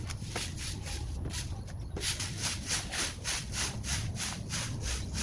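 A broom sweeping the ground in quick, even strokes, about four a second, with a short pause about a second and a half in.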